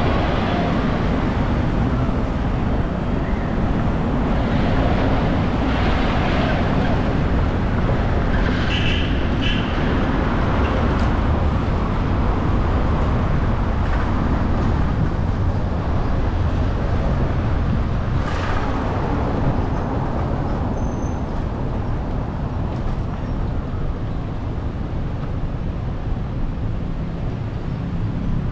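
Steady road and traffic noise from a car driving through city streets: a constant low rumble of tyres and wind, with a few short sharp sounds about a third of the way in and again past the middle.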